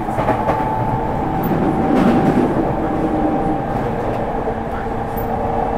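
Inside an E231 series 1000 electric commuter train running at speed: steady wheel-and-rail noise with the hum of the VVVF inverter and traction motors as a few held tones, one of them shifting lower about five seconds in. A brief swell of rumble comes about two seconds in, and a weak air conditioner runs underneath.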